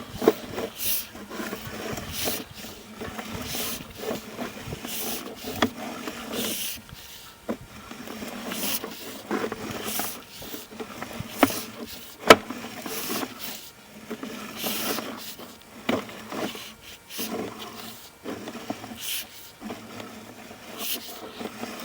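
Sewer inspection camera's push cable being pulled back by hand: irregular rubbing and scraping with scattered sharp clicks, the loudest click about twelve seconds in.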